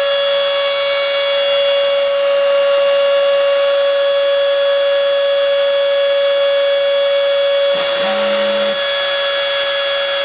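Spindle motor of a home-built CNC router running at a steady high speed with a constant whine while milling hard foam. About eight seconds in, a lower hum joins briefly.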